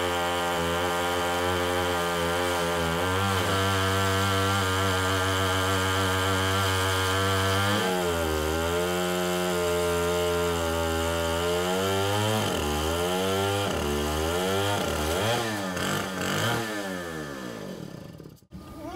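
Stihl 090 two-stroke chainsaw in a chainsaw mill, running at full throttle as it rips lengthwise through an elm log. Its pitch sags and recovers under load a few times, wavers up and down in the second half, then winds down near the end.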